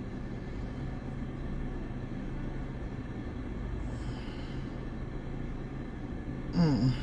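Steady low hum and rumble of a car cabin, with a brief voice sound near the end.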